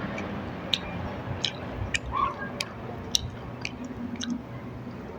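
A person chewing a mouthful of food with wet mouth clicks and smacks, about two a second.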